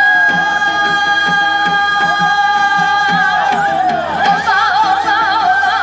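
Korean folk song in call-and-response style: a long note is held for about three seconds, then the melody turns into a wavering line with heavy vibrato, over a steady drum beat.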